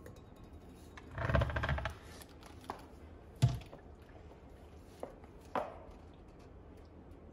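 Kitchen items being handled on a countertop: a short clatter, then a single sharp knock and a few light clicks.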